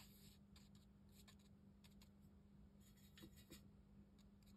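Faint, short scratching strokes of a watercolour brush dabbing paint onto rough cotton rag paper, over a low steady hum.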